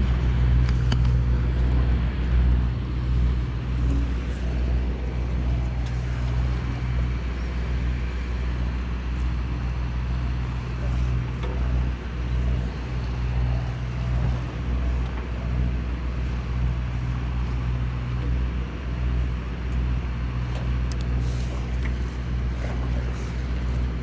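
A large boat's engine running steadily: a low, even drone with no change in pitch, and a few faint ticks over it.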